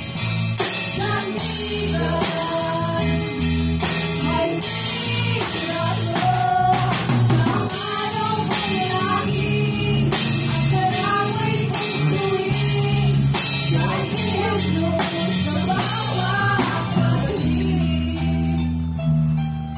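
Two girls singing a Tagalog song as a duet into handheld microphones, over instrumental accompaniment with a steady beat.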